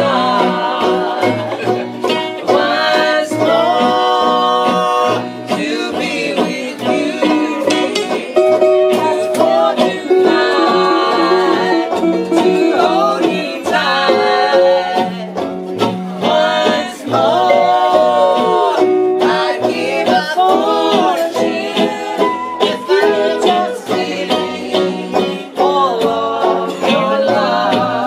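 Acoustic string band playing a tune, led by a five-string banjo over strummed guitars, with mandolin, ukulele, bass and lap steel guitar, while a woman sings at the microphone.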